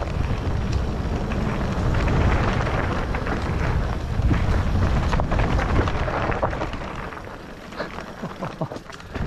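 Wind buffeting the microphone over the rattle and knocks of a mountain bike riding down a rough trail. About seven seconds in the wind drops away, leaving scattered clicks and knocks.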